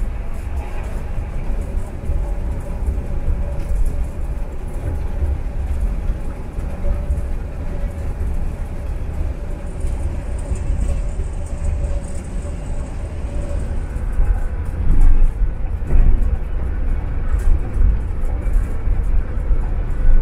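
Cabin noise of a Scania K360 coach cruising at speed: a steady low engine and drivetrain drone with road and tyre rumble.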